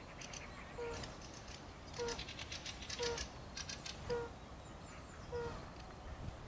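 European fire-bellied toad (Bombina bombina) calling: a short, low, hooting note repeated about once a second, each note falling slightly in pitch. This is the male's mating call.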